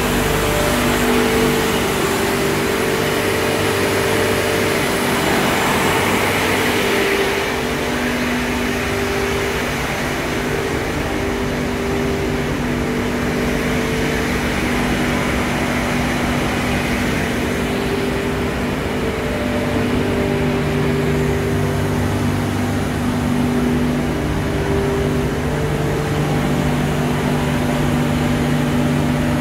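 S3-900 freon refrigeration compressors and their electric motors running together, a steady machinery noise with several humming tones. The noise is a little brighter for the first seven seconds or so.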